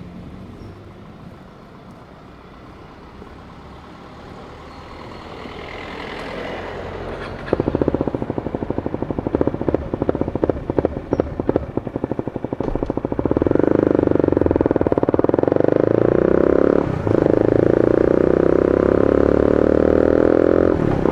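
2017 KTM Duke 250's single-cylinder engine running through an Austin Racing GP1R exhaust fitted with two dB killers. It is quiet at first, turns sharply louder about a third of the way in with quick uneven pulses, then holds a loud steady note from about two thirds in, broken by a brief drop near the end.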